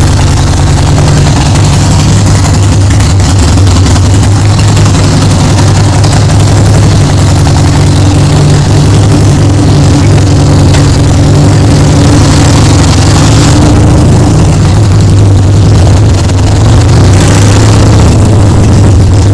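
Harley-Davidson Sportster Seventy-Two's 1200 cc air-cooled V-twin running loud through its pipes while the bike is ridden, its note fairly steady. Wind noise rushes over the microphone.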